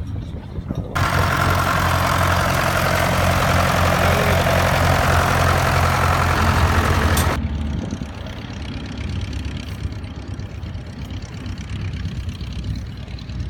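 Tractor engine running steadily close by. A loud even hiss covers it from about a second in and cuts off sharply after about six seconds.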